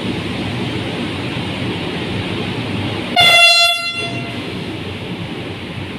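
KTM Komuter Class 92 electric train sounding its horn once, a short blast of under a second about halfway through, as it pulls away from the platform. Under it runs a steady low rumble of the train and station.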